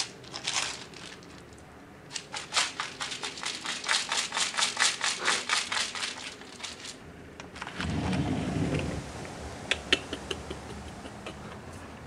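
Crinkling and crackling, a fast, even run of crackles at about four to five a second for several seconds. Then a low rumbling rustle and a few sharp clicks near the end.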